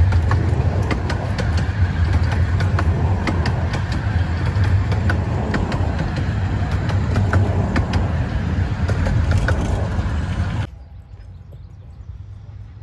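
15-inch-gauge miniature railway coaches rolling past close by: a steady low rumble with frequent sharp clicks of the wheels on the rails. It cuts off suddenly near the end, leaving a much quieter background.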